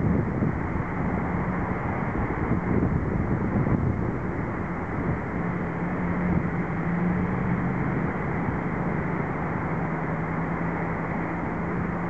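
Jet engines of a Boeing 737 landing, heard as a steady hum under gusty wind buffeting the microphone. The low engine drone grows stronger from about halfway through as the jet comes in to touch down.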